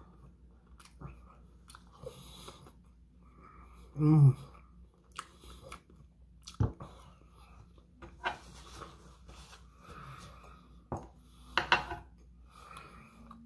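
A person chewing and crunching bacon close to the microphone, with scattered crisp bites and wet mouth sounds. A short voiced sound from the eater about four seconds in is the loudest moment.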